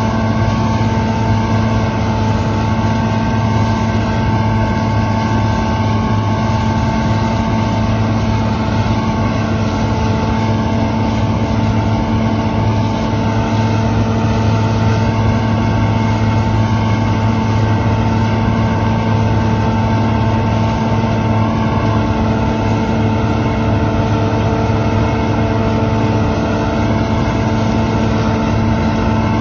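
Claas Lexion combine harvester running steadily while harvesting soybeans: a constant machine drone with a steady whine over it.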